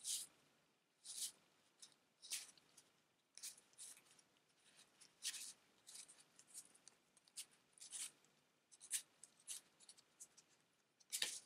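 Game cards being slid off a deck one at a time by hand: faint, short papery scrapes about once a second.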